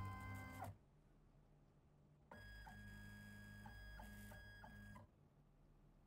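Pen plotter's stepper motors driving the pen across the paper: a steady whine over a low hum from a little past two seconds in until about five seconds in, with small hitches about once a second. It opens with a louder, shorter buzz that stops before the first second is out.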